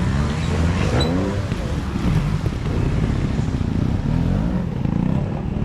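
Trials motorcycle engine being blipped and revved through a section, its pitch rising and falling with each burst of throttle over a heavy low rumble.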